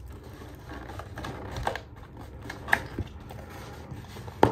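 Takeout food packaging being handled and opened on a table: scattered light rustles and clicks, with a few sharp taps and a louder knock near the end.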